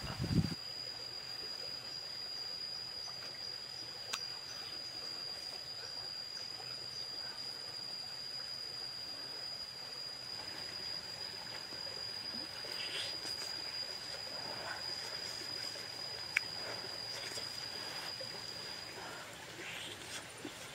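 A small stream trickling, with a steady high-pitched tone over it that stops near the end. A low thump comes right at the start, and a few faint clicks follow.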